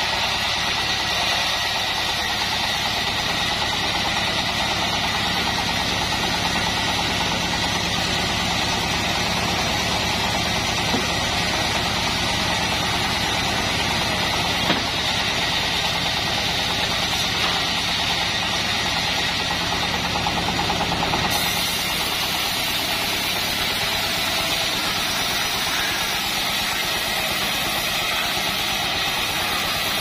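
Homemade band sawmill running steadily, its big belt-driven wheel spinning and the blade sawing through a log: a constant mechanical drone with a high whine. There is one short knock about halfway, and the high part of the sound changes about two-thirds of the way in.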